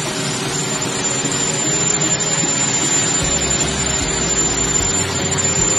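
Helicopter on the ground with its turbine engines running and rotor turning: a loud, steady whine with a thin high tone over the rotor noise.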